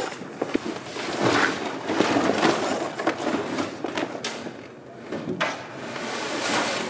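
A heavy canvas soft top being hauled over a Land Rover's hood frame: the canvas rustles and flaps in swelling bursts, with scattered clicks and knocks of its fittings.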